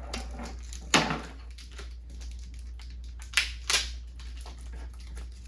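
Toy packaging being handled and pulled apart: plastic and card crackling and clicking. There is a sharp crack about a second in and two more close together about three and a half seconds in, over a low steady hum.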